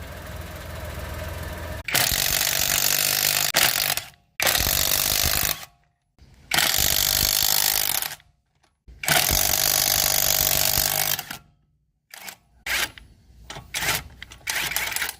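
Impact wrench run in four bursts of one and a half to two and a half seconds each, with short pauses between them, then several short blips near the end.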